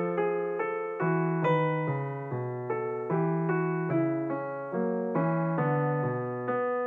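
Background piano music: single notes and chords struck at a steady, unhurried pace, each note fading before the next.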